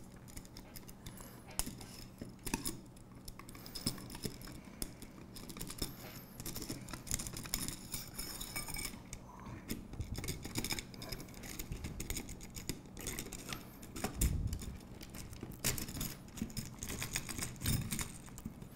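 Aluminium extrusion and metal brackets being handled and slid into place on a robot chassis frame: scattered light metallic clicks, taps and scrapes.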